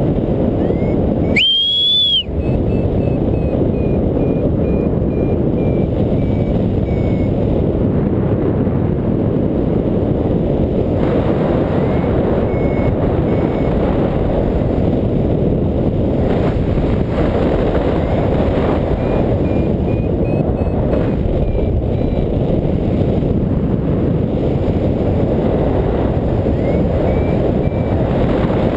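Airflow rushing over the harness-mounted camera's microphone during a paraglider flight. A paragliding variometer beeps faintly in clusters of short beeps, the tone it gives in rising air, and a louder rising tone sounds about two seconds in.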